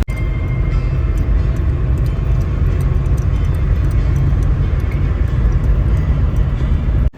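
Steady low rumble of a moving vehicle, cutting off abruptly near the end.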